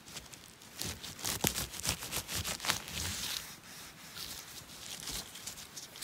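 Rustling and irregular crackling snaps of forest-floor vegetation being disturbed, densest in the first half.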